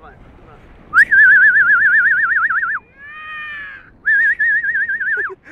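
A person whistling loudly in two long, fast-warbling notes, the first starting about a second in and the second about four seconds in. Between them comes a quieter, falling, wavering whistle.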